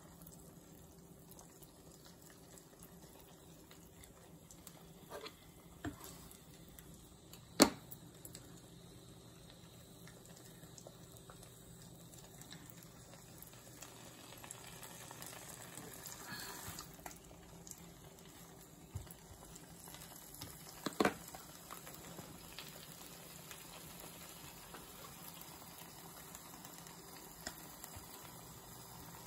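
Eggs and sliced ham frying in a nonstick pan, a quiet steady sizzle. A few sharp clicks cut through it; the loudest comes about a quarter of the way in and another about two-thirds of the way through.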